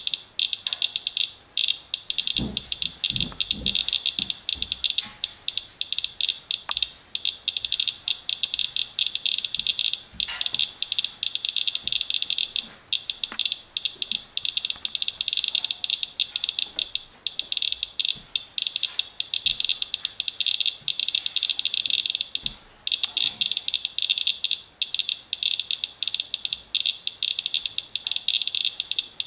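Radalert Inspector Geiger counter clicking rapidly, a dense stream of high-pitched chirps, as it counts a rain-wet paper-towel wipe sample reading about 0.3 mR/hr, roughly 30 times background. A few soft low knocks about two to four seconds in.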